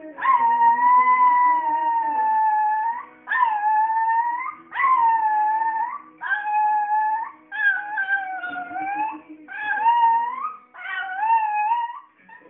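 Small dog howling along to music: one long howl of about three seconds, then a run of shorter howls, several bending up in pitch at their ends. Music plays more faintly underneath.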